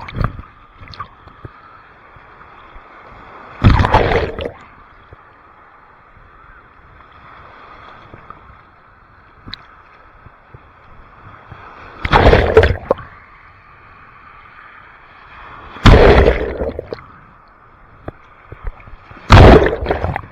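Ocean waves washing onto the beach: a steady wash broken by about five loud surges, each lasting about a second, a few seconds apart.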